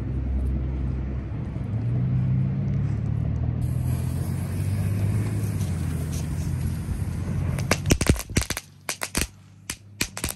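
Cajun Crackler firework noisemakers going off on concrete: a rapid, uneven string of sharp pops starting a little before eight seconds in. Before that, a steady low rumble.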